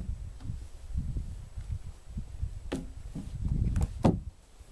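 Wooden wall logs of a log hut being handled, giving a few sharp knocks, the loudest about four seconds in, over a low rumble.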